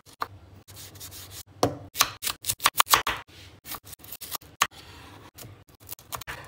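Chef's knife chopping tomato, red onion and coriander on a wooden cutting board: a run of quick, sharp knife strikes on the board, loudest and densest in the middle, with some scraping of the blade in between.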